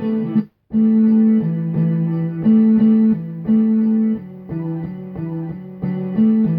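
Music made of chopped slices of a guitar sample played back one after another, the notes starting and stopping in blocks. The sound cuts out completely for a moment about half a second in.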